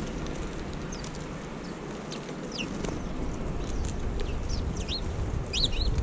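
House sparrows chirping: short, quick downward chirps, a few at first and more close together near the end, over a low rumble of background noise.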